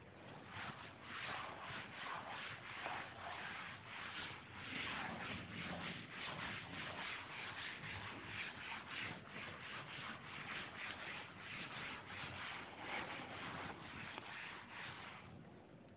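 Cloth duster wiping chalk off a chalkboard: faint, quick back-and-forth rubbing strokes, two or three a second, stopping just before the end.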